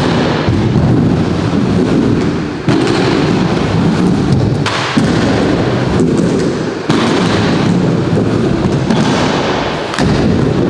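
Aggressive inline skate wheels rolling on a wooden halfpipe ramp, a loud steady rumble. It breaks off and starts again sharply about four times, with a knock as the skates meet the coping between runs across the ramp.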